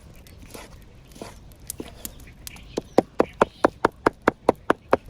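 Knife chopping on a wooden cutting board: a fast, even run of sharp knocks, about five a second, starting about three seconds in.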